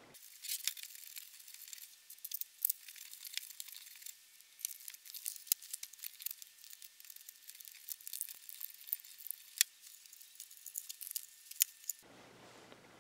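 Close handling noises of a plastic label-printer housing and a sheet of material being handled: rapid irregular clicks, ticks and crinkling, thin and tinny with no low end. They stop about 12 seconds in.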